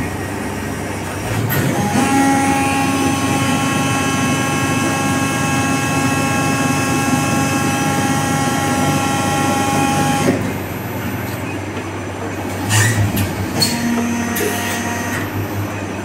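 Plastics-factory machinery running, with a loud steady droning whine that cuts in about two seconds in and stops abruptly some eight seconds later, over constant machine noise. A few short clatters of handled plastic follow near the end.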